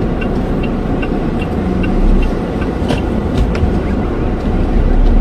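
Car engine and road rumble heard from inside the cabin as the car gets under way. A faint regular ticking, about two to three ticks a second, fades out about halfway through, and a few sharp clicks follow.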